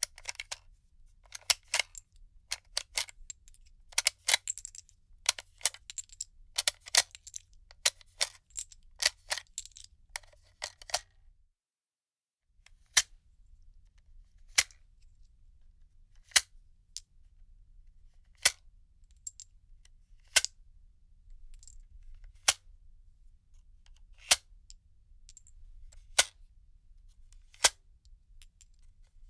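Cartridges being pushed out of a gun magazine one at a time: for about eleven seconds, quick clusters of metallic clicks and clinks. After a short gap comes a slower series of single sharp clicks, about one every two seconds.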